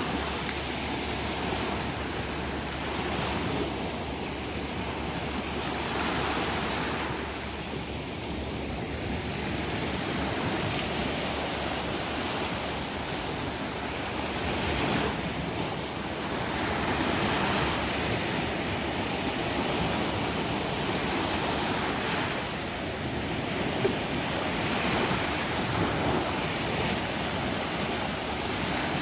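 Sea waves breaking and washing in, rising and falling every few seconds.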